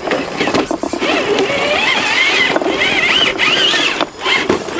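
Electric motors and geared drivetrains of RC scale rock crawlers whining, the pitch rising and falling with the throttle, with clicks and scrapes as the trucks crawl over rock.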